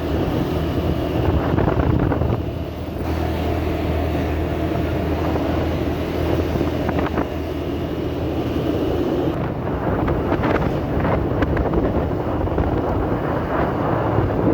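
Motorbike engine running while riding, with wind buffeting the microphone.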